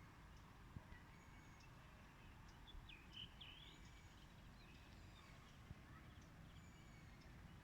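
Faint evening birdsong: several songbirds giving short, high chirps and quick whistled notes, busiest about three seconds in, over a steady low background rumble.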